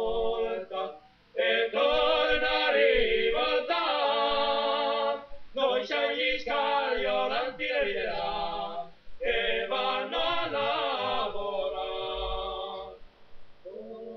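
Unaccompanied singing with no instruments, in held, wavering notes. The phrases are about four seconds long, with short breaks between them.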